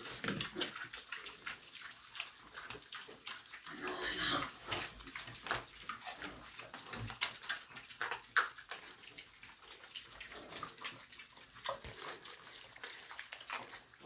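A group of young pigs eating moist feed at a trough, with continuous irregular wet chomping, smacking and slurping.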